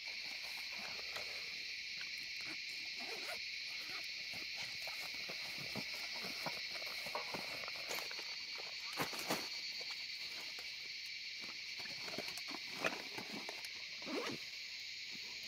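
Steady chorus of night insects, with scattered soft clicks and rustles over it.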